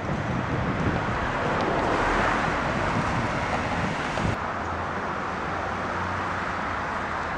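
Outdoor street traffic noise: vehicles passing on a wide city road, with wind on the microphone. About four seconds in it changes abruptly to a quieter, steady low rumble of distant traffic.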